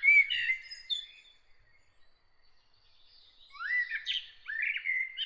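A songbird singing: two quick warbling phrases of sliding, chirping notes, one at the start and another after a pause of about two seconds.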